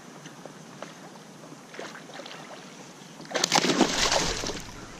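A big hooked bass thrashing at the surface beside a kayak: a loud burst of splashing about three seconds in, lasting about a second, over faint lapping water with a few light clicks before it.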